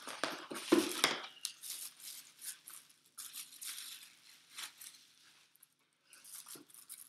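Cardboard box flaps and crinkling clear plastic packaging as a camera lens is pulled from its box and unwrapped: an irregular run of rustles and crackles, loudest about a second in.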